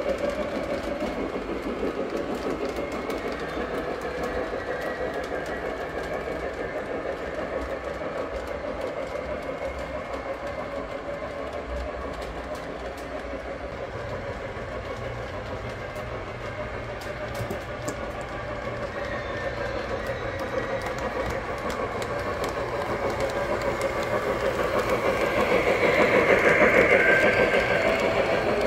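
Lionel O-gauge model train running on the layout, its wheels and motor giving a steady rumble with rapid clicking over the track. It grows louder as the train approaches and passes close by, loudest about 27 seconds in.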